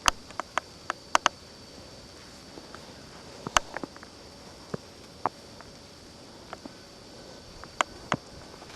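Sharp ticks and clicks at irregular intervals, a dozen or so with no steady rhythm, over a faint steady hiss and a thin high whine.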